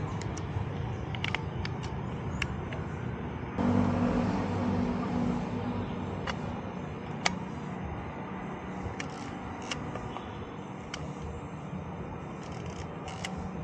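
Steady road traffic in the background, suddenly louder from about three and a half seconds in, with scattered small sharp clicks from a Pentax 17 half-frame film camera being handled as it is loaded and its back is shut.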